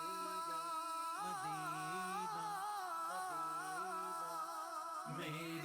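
Devotional Urdu naat: a wordless hummed passage, a low voice held steady under a melody that wavers and turns in pitch. The sung words return right at the end.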